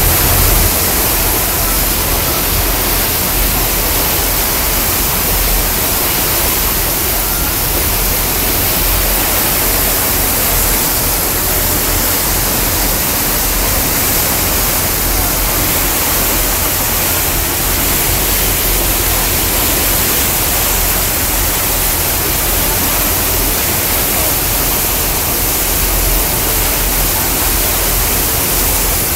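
Steady loud rushing noise on the deck of a moving boat: wind buffeting the microphone with an uneven low rumble, over water rushing past the hull and churning in the wake.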